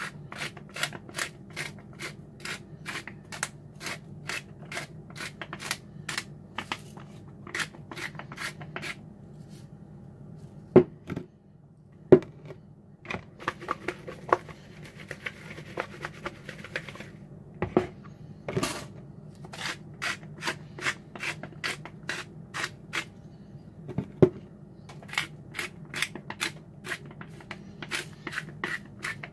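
Hand-twisted spice grinder grinding seasoning, a short scratchy stroke about two to three times a second. About a third of the way in it stops for a few sharp knocks and several seconds of raw chicken pieces tossed by hand in a plastic bowl, then the grinding starts again.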